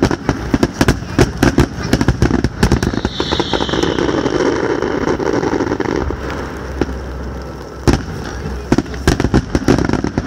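Aerial fireworks shells bursting in a finale: rapid volleys of bangs, a stretch of dense crackling hiss in the middle with a brief high-pitched hiss about three seconds in, a single loud bang near eight seconds, then another quick run of bangs near the end.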